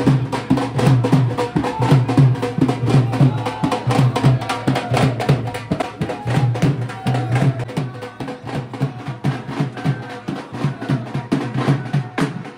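Music with a fast, steady drum beat of about five strikes a second over a bass line. It cuts off abruptly near the end.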